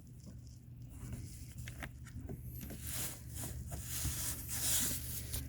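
Hands working the plastic clip and cable on the door-panel's inside handle: light clicks and a scratchy plastic rustle, loudest about three to five seconds in, over a steady low hum.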